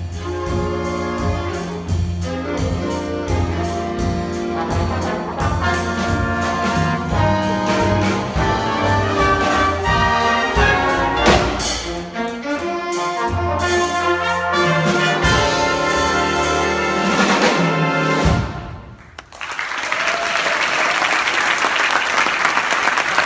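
A concert band with brass, saxophones, bass and drums plays the final bars of a piece; the music stops about eighteen seconds in, and after a moment's pause the audience applauds.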